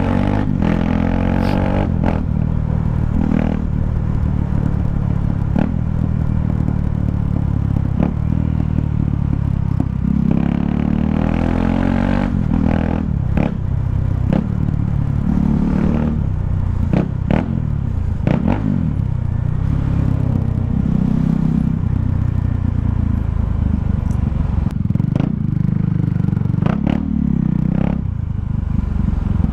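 KTM Duke 390's single-cylinder engine through an open exhaust pipe, ridden on the road, its pitch rising and falling over and over as the throttle is opened and closed through the gears. Many short sharp cracks are scattered through it.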